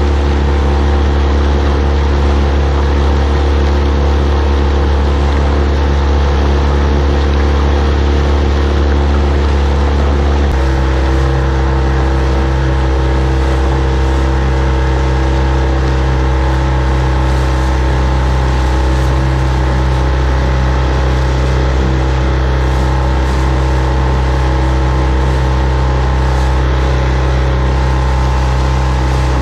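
Tohatsu 9.8 hp outboard motor running steadily, pushing an inflatable boat along, with a hiss of rushing water. Its note shifts slightly about ten seconds in.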